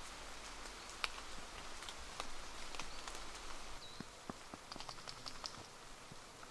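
Rain in a forest: an even soft wash of rain with scattered drops pattering and ticking irregularly, and a few faint high chirps about four to five seconds in.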